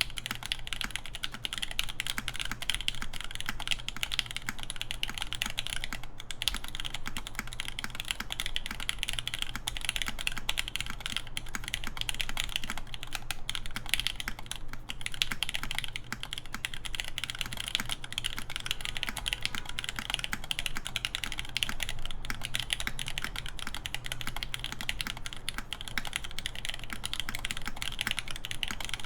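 Continuous typing on a 959 Mini GT mechanical keyboard with lubed Nixdorf/Cherry MX Black linear switches in an aluminum plate, capped with Cherry G81-3100 keycaps. The keystrokes come in a dense, steady stream with no real pauses.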